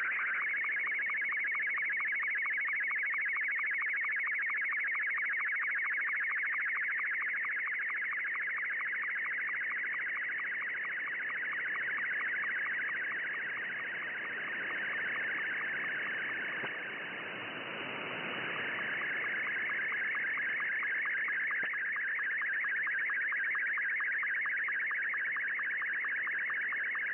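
Slow-scan television (SSTV) picture signal in Martin 2 mode, received on 20 m shortwave through an SSB receiver: a fast, even warble of tones between about 1 and 2.3 kHz with a regular sync tick several times a second. The signal fades partway through, letting hissing band noise come up, then recovers.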